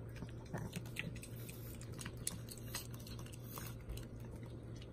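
Small dog chewing pieces of green bell pepper: faint, irregular crunching clicks.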